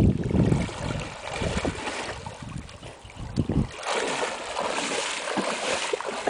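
Water sloshing and splashing around a person's legs as he wades through shallow lake water. The splashing turns louder and brighter about two-thirds of the way in.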